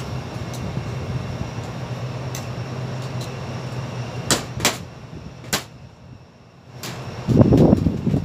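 Sharp clicks and knocks from work on sheet-metal air ductwork, over a steady low hum that stops about five seconds in. A loud rough rumble comes near the end.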